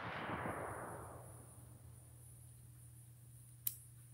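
Echo of a 7.62x39 AR-15 rifle shot dying away over the first second or so, then a single sharp click about three and a half seconds in.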